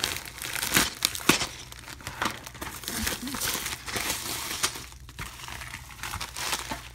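White plastic mailing envelope being pulled and torn open by hand: continuous crinkling and tearing with many sharp crackles, loudest about a second in.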